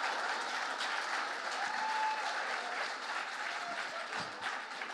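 Audience applause, loudest at the start and slowly dying down.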